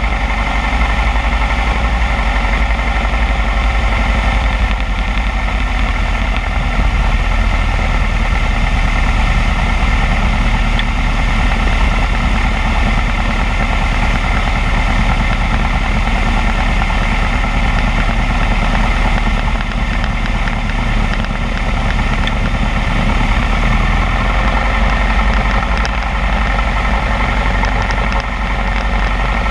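Alon A2 Aircoupe's Continental C90 four-cylinder air-cooled engine and propeller running steadily in flight, heard from inside the cabin.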